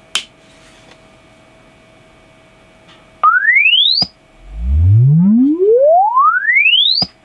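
ALTO TS310 active speaker playing a sine-wave sweep from a signal generator. A click comes first. Then a tone cuts in partway up and rises to the top, and a full sweep climbs smoothly from deep bass to high treble in about two and a half seconds, each ending in a click as it resets. The bass end now comes through, a sign that the repaired amplifier is working again.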